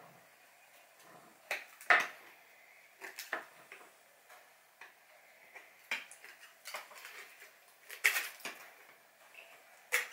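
A few scattered clicks and light knocks of a roast chicken being pulled apart by hand on a wooden board, the sharpest about two seconds in, around eight seconds and just before the end.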